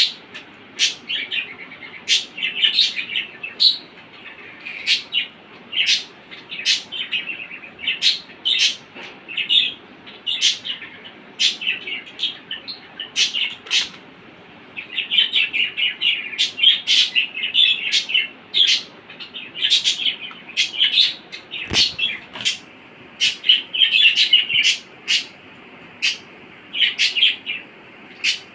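A budgerigar chattering: sharp chirps mixed with a scratchy warble, in quick runs with short pauses between them.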